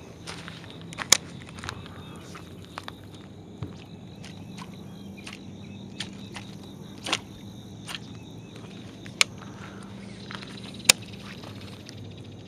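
Scattered sharp clicks and taps from handling a baitcasting rod and reel while casting and working a jig, about four loud ones and several softer ones, over a steady low hum.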